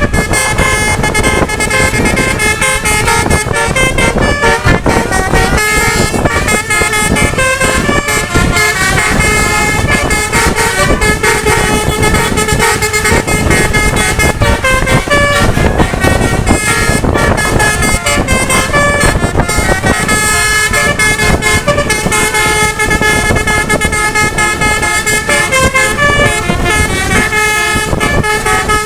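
Basuri 'telolet' multi-tone bus horns playing a continuous tune of quickly stepping notes, over steady road and engine noise from the moving vehicles.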